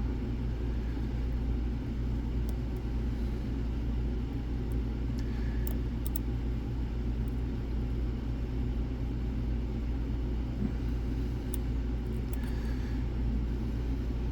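A steady low rumble, with a few faint, sharp metallic clicks scattered over it from picks and tension tool working the pins of a Basi six-pin lock with side sliders.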